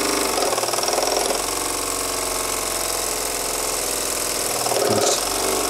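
Bowman-Bryant BM valveless twin-cylinder model steam engine running fast under steam with a rapid, steady beat. It keeps its speed while a gloved hand brakes the flywheel, a sign of the engine's power.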